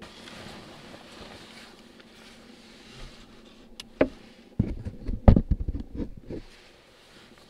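Faint steady hiss, then about four seconds in a sharp knock followed by a burst of rustling nylon sleeping-bag fabric and bumps as someone stirs inside it, dying away after a couple of seconds.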